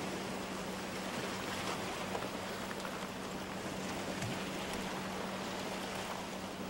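Steady wash of sea surf on a rocky shore mixed with wind noise, with a faint steady low hum underneath.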